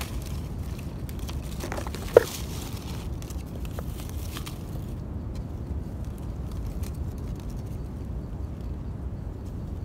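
Hands rustling through leaf litter and twigs on the forest floor while reaching for a mushroom, with faint scattered crackles and one sharp click about two seconds in, over a steady low rumble on the microphone.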